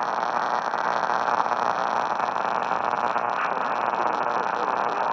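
Steady hiss of radio static from a receiver, even and unbroken, with no alert tones or clear speech.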